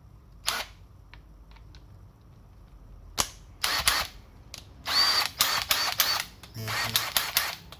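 Clicks and metal clatter of a steel impact socket being pushed onto and worked off the square anvil of a Makita DTW190 impact wrench: a sharp click about half a second in, another near three seconds, then several short bursts of scraping and rattling.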